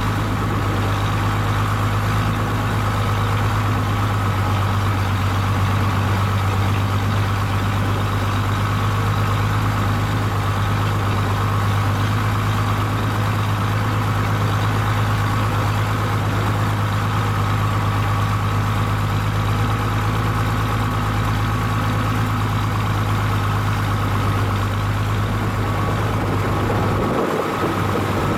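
Motor vehicle's engine running steadily with a constant low drone while driving slowly along a gravel mountain track, heard from the vehicle itself.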